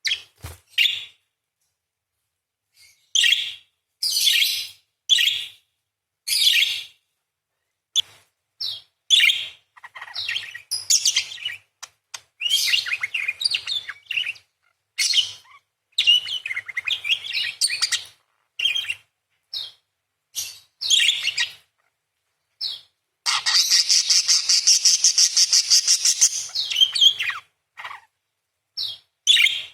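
Parakeet calling: a string of short, sharp chirps and squeaks, then a long, fast grating chatter of about four seconds past the middle, then more short chirps near the end.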